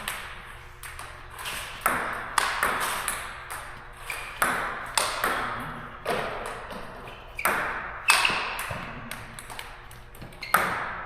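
Table tennis ball being played in a high-ball smash drill: sharp clicks of the ball on the paddles and table at an irregular pace, some in quick pairs, each ringing on with a long echoing tail.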